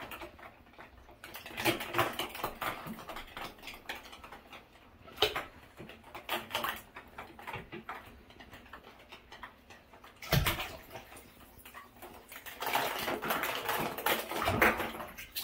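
Water sloshing and hollow plastic eggs clicking and knocking against each other and the tub as a mink swims through them. Clusters of clicks come and go, with one louder knock about ten seconds in and a busier run of clatter near the end.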